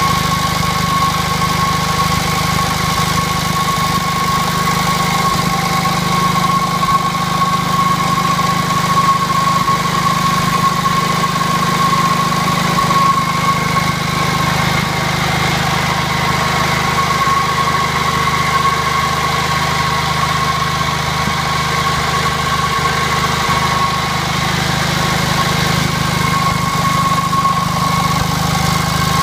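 J.A.P. Model 55 engine of a generator set running steadily at an even speed, with a steady high-pitched whine alongside.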